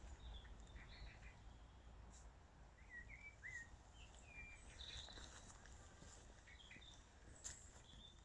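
Faint birdsong: short chirps and quick whistled notes, heard over a low, steady background rumble.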